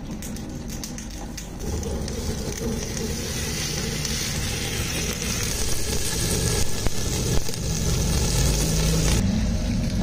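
Spiced lamb leg sizzling in a hot steel pot over a flame-fired stove, a steady hiss with a low rumble beneath it. It starts about two seconds in and cuts off abruptly near the end.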